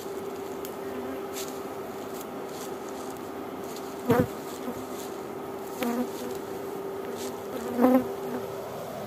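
Honeybees humming steadily at the entrances of a row of wooden hives, with three brief louder buzzes about four, six and eight seconds in.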